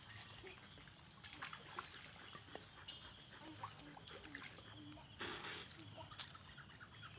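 Faint outdoor rural ambience: a steady high hiss with scattered small chirps and clicks, and a brief burst of noise about five seconds in.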